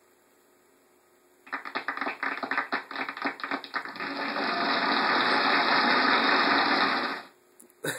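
Sound effect from a homemade PowerPoint stick-figure slideshow, played through computer speakers. About a second and a half in it starts suddenly as dense crackling, swells into a steady noisy rush, and cuts off abruptly near the end.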